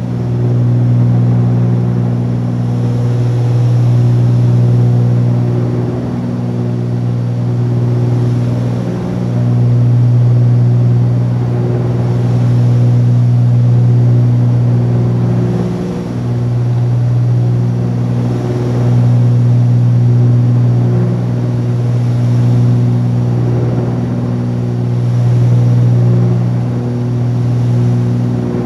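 The two six-cylinder piston engines and propellers of a Cessna 310Q drone steadily at climb power, heard in the cabin. The sound swells and fades slowly every few seconds, the beat of two propellers turning at slightly different speeds.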